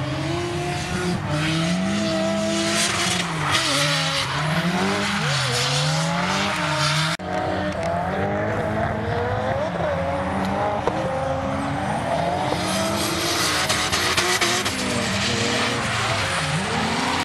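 Drift cars' engines revving hard, the pitch swinging up and down about once a second as they slide through the corners, over tyre squeal. The sound breaks off for an instant about seven seconds in.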